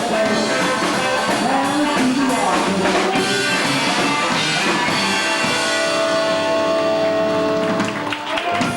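Live rock and roll band playing the end of a song, with the last chord held for a few seconds and stopping about eight seconds in.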